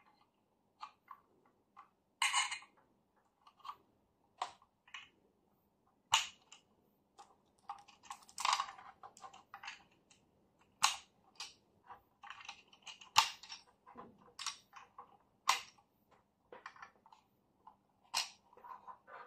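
Irregular clicks, knocks and scrapes of cables being plugged into the metal-cased Aiyima A07 MAX amplifier: RCA plugs pushed into the input jacks, banana plugs into the speaker binding posts and a DC plug into its socket. A handful of the clicks are louder than the rest.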